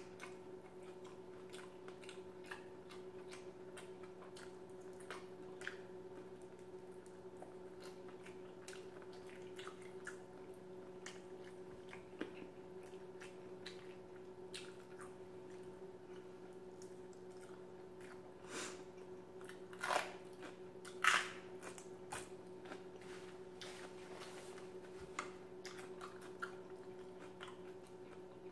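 Close-up chewing: soft, wet mouth clicks scattered throughout, with a few louder ones about two-thirds of the way through, over a steady low hum.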